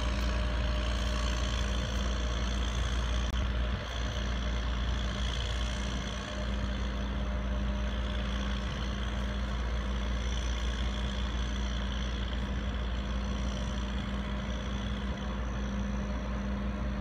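Heavy diesel engine running steadily at a constant pitch, with a deep low rumble and a steady hum.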